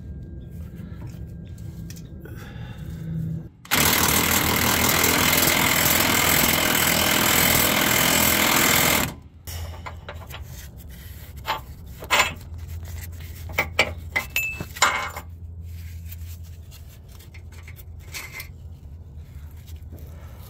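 Impact wrench hammering for about five seconds, starting about four seconds in, loosening a front lower control arm bolt. It is followed by a few sharp metal clinks as the bolt and parts are handled.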